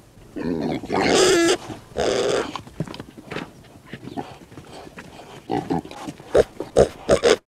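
Pigs grunting and squealing: a few long, loud calls in the first two and a half seconds, then a run of short grunts near the end. The sound cuts off abruptly.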